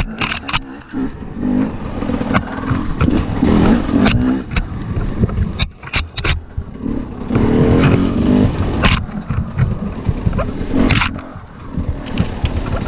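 Husqvarna TE300 two-stroke enduro motorcycle engine revving in repeated surges on and off the throttle, punctuated by many sharp knocks and scrapes as the bike works over rough trail.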